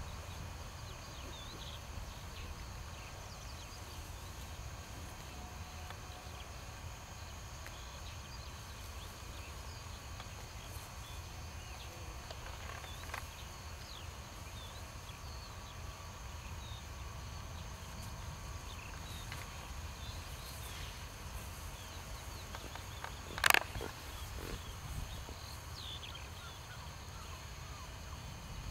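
Quiet outdoor ambience: a steady low rumble with faint, scattered bird chirps, and one short sharp sound about 23 seconds in.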